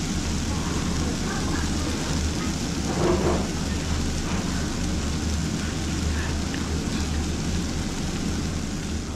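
Steady low rumbling noise with an even hiss over it, and a brief louder patch about three seconds in.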